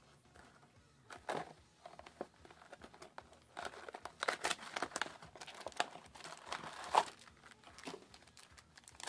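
Foil trading-card booster pack crinkling as it is handled and torn open: a run of short, crackly rustles, thickest and loudest through the middle.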